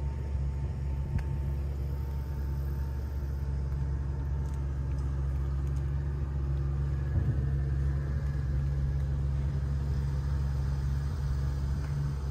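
An engine idling: a steady low rumble.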